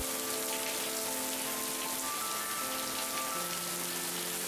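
Steady rain falling, with soft music of long held notes that change every second or so beneath it.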